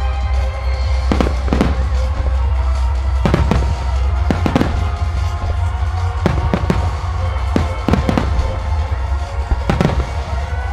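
Aerial fireworks shells bursting: a dozen or so sharp bangs, often in pairs, from about a second in, over music played for a display set to music.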